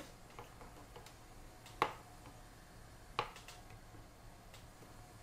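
Scattered light clicks and taps as a Scotty mount is tightened down by hand into the slot of a kayak outrigger arm, with two sharper clicks about two and three seconds in.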